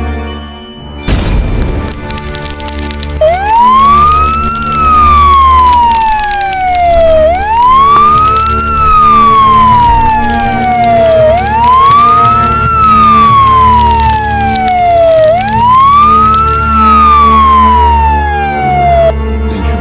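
Fire engine siren wailing in four slow cycles, each rising quickly and then falling slowly, over background music. About a second in, a sudden loud burst of noise.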